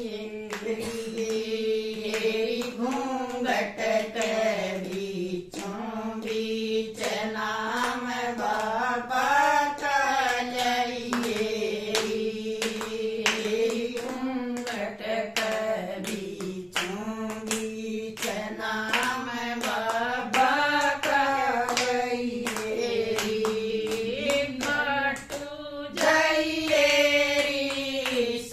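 A group of women singing a Haryanvi devotional bhajan together in unison, keeping time with steady, regular hand claps.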